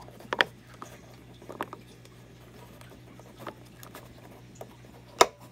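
Flathead screwdriver tip scraping and clicking against the rim of a plastic clip-in trim cover as it is pried, a few small scattered clicks, then one sharp snap near the end as the cover pops loose.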